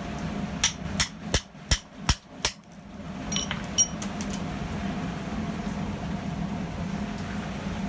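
Hand hammer striking steel: six quick ringing blows at about three a second, then a few lighter clinks, as a rivet head is hammered in a rivet header. Steady rain sounds underneath.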